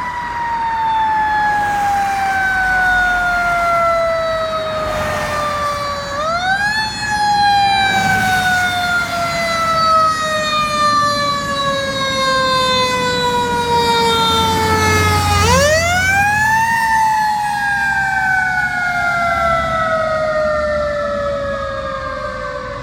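Fire engine's siren wailing as the truck approaches and passes: one long tone that falls slowly in pitch, then is wound back up twice, about six and sixteen seconds in, before falling again.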